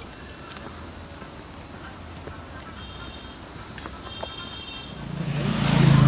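A steady, shrill chorus of insects buzzing high in pitch, unbroken throughout. A low hum comes in beneath it near the end.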